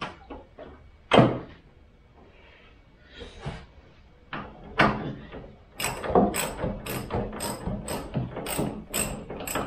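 A ratchet wrench undoing a bonnet hinge bolt. A few metal knocks, the loudest about a second in, then a quick run of sharp ratchet clicks, about two or three a second, over the last few seconds.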